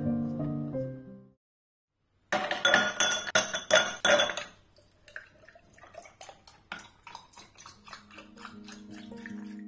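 Ice cubes dropped into a tall drinking glass, a quick run of loud clinks lasting about two seconds. Then carrot juice is poured over the ice, with softer scattered clinks of the cubes shifting.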